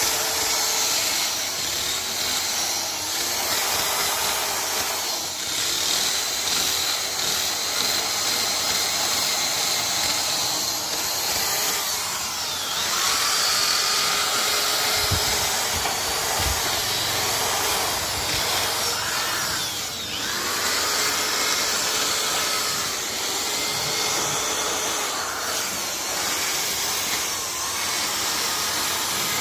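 Power woodworking machine running and cutting wood: a steady loud hiss with a whine whose pitch rises and falls in repeated arcs as the cutter moves.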